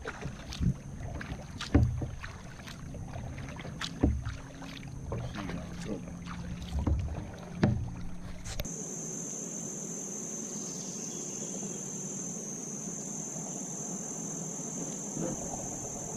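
Kayak paddling: irregular paddle strokes, splashes and knocks against the hull, over a steady high drone of insects. About nine seconds in it cuts off abruptly, leaving only the steady insect drone.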